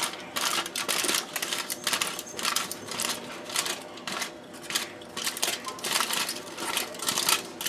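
Aluminium foil crinkling and rustling in the hand while chewed beeswax comb is scraped off it into a stainless steel saucepan: a quick, irregular string of crackles and light taps.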